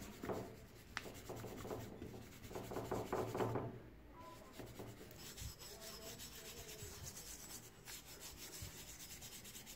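Stiff hand brush scrubbing back and forth over a wet, etched steel axe head, with brisk strokes that are heavier in the first few seconds and lighter after.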